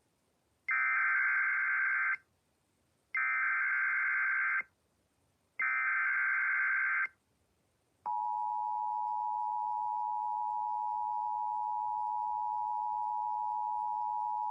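Emergency Alert System header: three bursts of warbling digital data tones, each about a second and a half long with a second's silence between them, then the two-tone EAS attention signal, a steady dual tone that starts about eight seconds in and holds. Together they announce the severe thunderstorm warning that is about to be read out.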